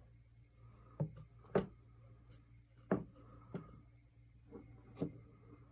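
About half a dozen small, sharp clicks and knocks from a dried carved gourd being handled and turned in the hand, over a faint steady low hum.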